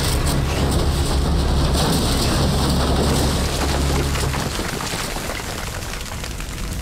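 Large fire burning, with dense crackling over a low rumble; the rumble drops away about four and a half seconds in while the crackling goes on.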